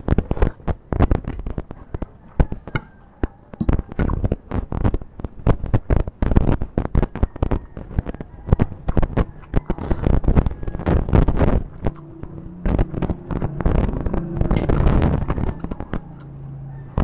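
Close-miked eating by hand, chewing and mouth noises, buried under a dense, irregular run of sharp crackling clicks that an on-screen note flags as an audio problem.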